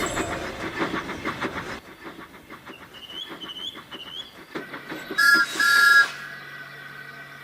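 Steam locomotive chuffing in a quick even rhythm that dies away about two seconds in, then its two-tone steam whistle blows twice in quick succession with a rush of steam, about five seconds in.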